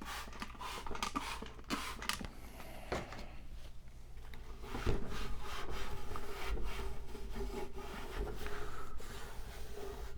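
Rubbing and scraping on a grimy computer case as dust and grime are cleaned out, with irregular short scrapes and knocks, becoming louder and steadier about five seconds in.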